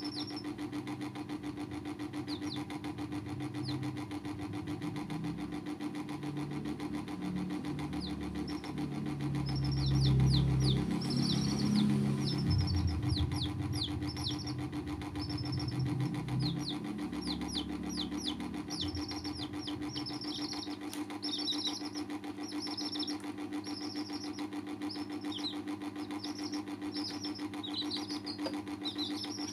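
Baby chicks peeping, in short, high, falling chirps, sparse at first and then frequent, over a steady mechanical hum. A low rumble swells about a third of the way in, is loudest for a few seconds and fades out by about two-thirds through.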